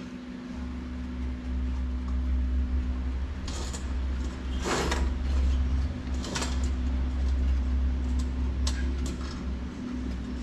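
Handling noise from the opened plastic base of a rice cooker as wires and parts are pushed back inside: a few short scrapes and clicks, one a longer scrape about halfway through, over a steady low hum.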